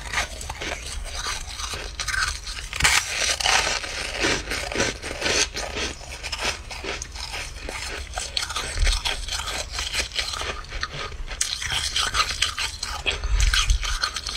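Dry freezer frost crunching: a steady run of close crackles and crunches with no pause.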